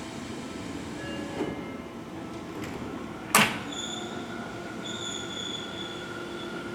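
Seibu 6000-series electric commuter train at the platform as it departs. The doors shut with a loud thump about three and a half seconds in, after a smaller knock earlier. Steady high-pitched electrical tones then set in as the train starts off.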